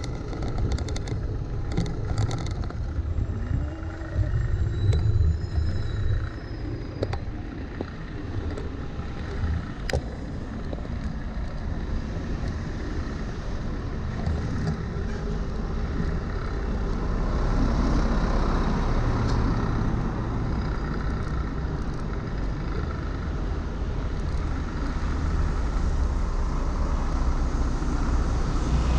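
Steady low rumble of city traffic heard from a moving bicycle on a wet street, with buses passing close alongside, and a few short clicks in the first third.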